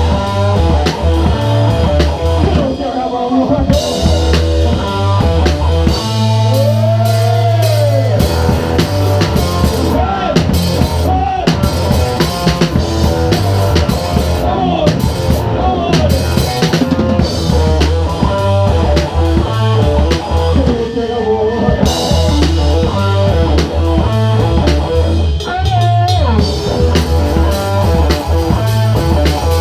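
Live rock band playing loudly, heard from right beside the drum kit: the drums and cymbals are to the fore over a heavy bass line and electric guitar whose notes bend in pitch.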